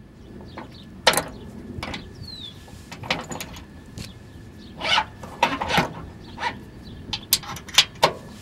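Metal clicks and clinks from a mower deck's gauge wheel as its height pin is pulled and the wheel spindle is shifted up or down in its tube, about a dozen sharp irregular clinks.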